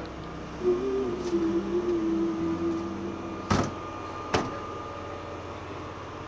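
Steady hum of idling emergency vehicles, with a wavering pitched tone for a couple of seconds and then two sharp clicks about a second apart.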